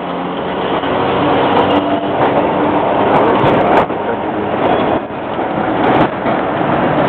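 Historic tram and its trailer car rolling past: a steady rumble of steel wheels on the rails, with a few sharp clicks as the wheels cross rail joints.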